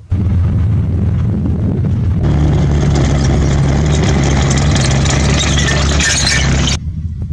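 A tracked armoured vehicle's engine runs hard as the vehicle drives over rocky ground, a steady heavy drone. It comes in abruptly, grows louder and fuller about two seconds in, and drops away suddenly near the end.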